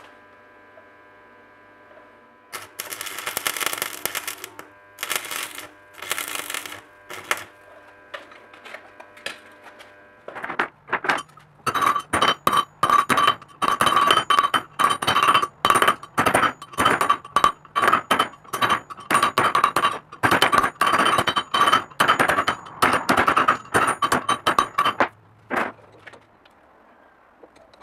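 Hand hammer striking a steel strip laid on a concrete block, a rapid series of sharp metallic blows with a ringing clang, about two to three a second.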